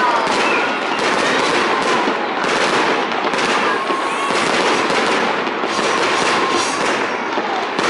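Aerial fireworks shells bursting, a dense run of crackling and popping with sharp reports every second or two.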